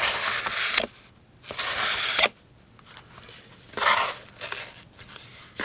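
A thin D2 steel folding-knife blade slicing through material in three cutting strokes, each under a second long and about two seconds apart.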